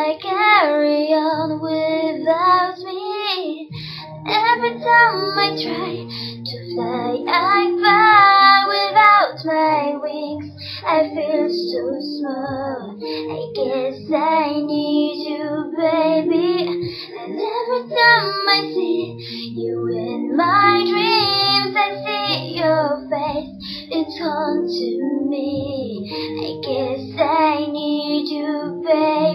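A young girl singing a slow ballad solo, with long held notes, over a quieter instrumental backing.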